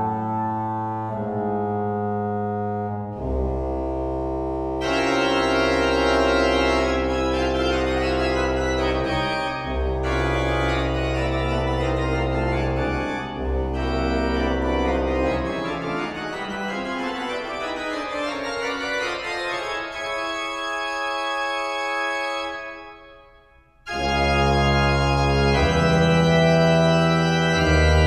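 Pipe organ playing sustained full chords over deep bass notes. About 22 seconds in the sound thins and dies away into the hall's echo, and a loud chord comes in again a second or so later.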